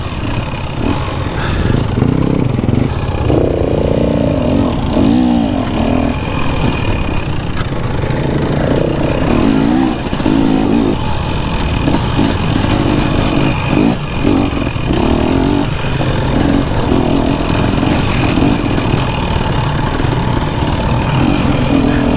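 Two-stroke engine of a 2023 KTM 250 XC dirt bike under way on rocky single track, its revs rising and falling again and again over a steady low rumble, with occasional knocks and clatter from the rough trail.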